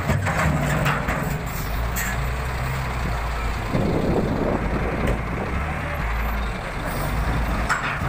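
SEM 660D wheel loader's diesel engine running under load as the machine works its bucket against a large boulder. A few sharp knocks and scrapes of the steel bucket on rock come near the start and again near the end.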